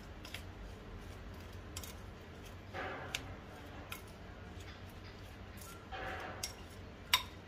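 Spoon mixing chopped vegetables and paneer with seasoning in a bowl: light clicks of the spoon against the bowl and two short soft scrapes, with a sharper click near the end.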